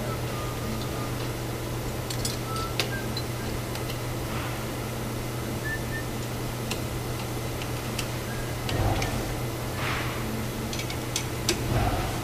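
Steady low hum of factory machinery with scattered light clicks and a couple of soft knocks, about nine seconds in and again near the end.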